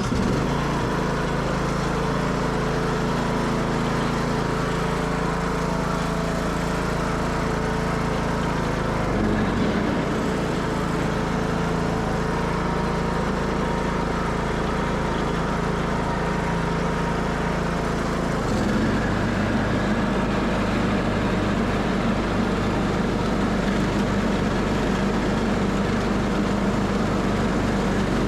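Craftsman LT2000 garden tractor's 19.5 hp engine running steadily, its tone shifting about a third of the way in and again about two thirds of the way in.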